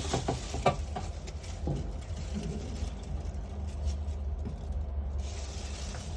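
Dirty, sandy water draining out of the washing machine's bottom drain outlet, with a few light knocks in the first second or so and a steady low rumble throughout.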